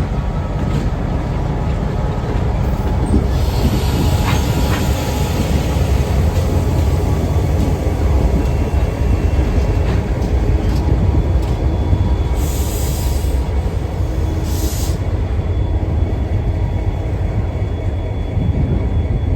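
EMD GP38-2 diesel locomotive leading a freight train past, its engine running with a steady low rumble as the train rolls along the track. There are two brief high-pitched bursts a little past the middle.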